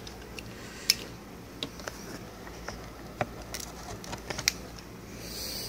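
Scattered small clicks and knocks of hands working the plastic cleaner head of a Dyson DC17 vacuum, as the soleplate's twist fasteners are turned to unlock the cover. Two sharper clicks stand out, about a second in and near the end.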